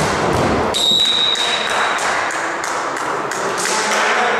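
A volleyball spiked at the net with a sharp smack, then a short referee's whistle blast about a second in, followed by a run of sharp taps or claps, about three a second.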